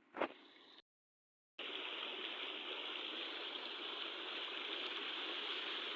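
A sharp knock, then a second of dead silence at a cut, then a steady rush of flowing water.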